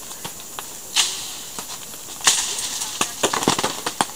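Plastic harvest tarp under an apricot tree crackling and taking scattered sharp knocks, with louder hits about a second in and just past two seconds, and a quick run of knocks near the end.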